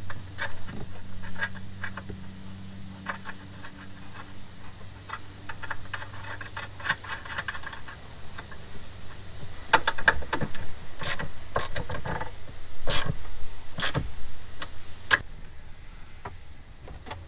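Scattered clicks, clacks and knocks of plastic and metal parts being handled and fitted under a Jeep's stripped dashboard, over a steady low hum that stops about halfway through. A run of louder sharp knocks comes in the second half.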